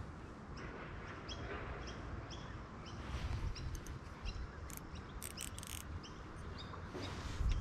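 A small bird calling with short, high chirps, about two a second, with a brief patch of sharper, higher clicks midway and a low rumble underneath.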